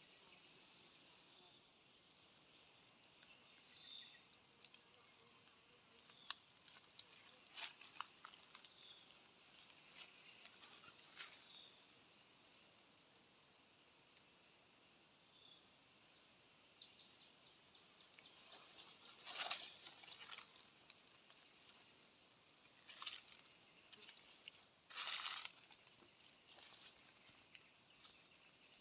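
Faint insect chirping, in repeated trains of quick high pips, with scattered clicks and rustling crunches. Two louder rustles come about two-thirds of the way in and near the end.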